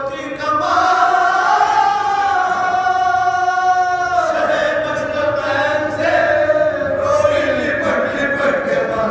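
Several men's voices chanting a marsiya, an Urdu elegy of mourning, together in a slow melodic line. A long held note ends about four seconds in, and a new phrase begins.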